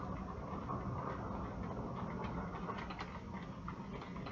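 Thunder rolling after a lightning flash: a steady low rumble lasting several seconds that slowly eases off, with scattered ticks of rain drops on top.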